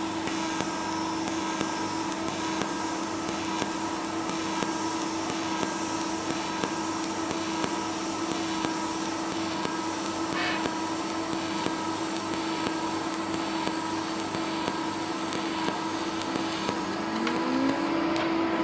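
TIG welding arc on a low-frequency pulse setting, with a steady hiss and buzz that swells in small regular pulses about once a second as the current switches between peak and a base current one-third as strong.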